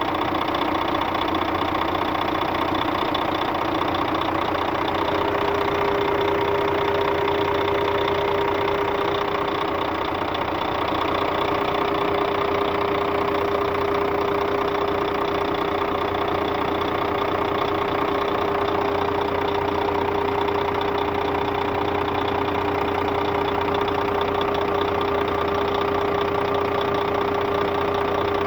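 Scania DC13 13-litre six-cylinder diesel of a Scania K400 bus running steadily, with a steady whine that joins in about five seconds in. The engine is being run to find a strange noise the customer reported.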